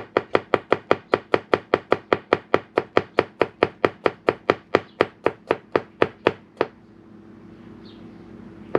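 Chef's knife slicing garlic on a cutting board in a fast, even rhythm of about four strokes a second, stopping about six and a half seconds in. One sharp knock near the end.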